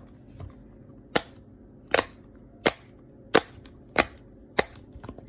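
Silicone bubbles of a dimple digits fidget toy being pressed through with a finger one at a time, giving a series of about six sharp pops roughly two-thirds of a second apart.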